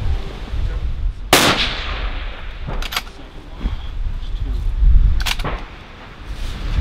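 Centerfire precision rifle shots: one loud report about a second and a half in that rings out and fades, then two lighter, sharper cracks a few seconds apart, over a steady low wind rumble on the microphone.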